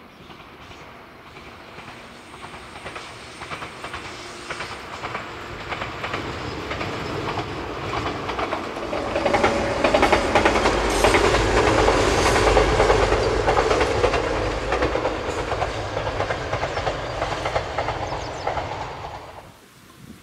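Kumoya 443 series electric inspection train running past, its wheels clacking over the rail joints. The sound builds, is loudest about halfway through, then fades and drops away near the end.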